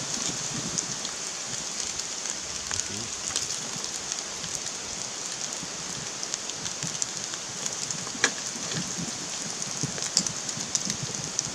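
Ground beef sizzling in a pan on a portable butane camp stove, a steady hiss with a few sharp clicks, two of them near the end.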